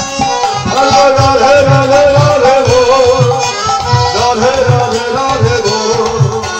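Live Hare Krishna devotional music played loud over a sound system: a singer's wavering melody over a reed instrument and a steady low drum beat.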